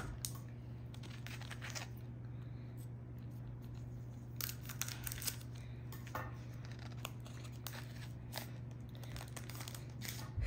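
Foil Pokémon TCG booster pack being torn open and crinkled, in short scattered rips and rustles, as the cards are pulled out.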